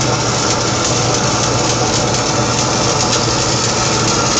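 Stick-welding arc crackling and sizzling steadily as an electrode burns, over a steady low hum from the welding machine.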